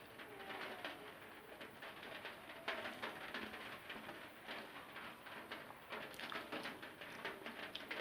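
Close-miked eating sounds: irregular wet smacks and clicks of rice and egg curry being chewed and eaten by hand.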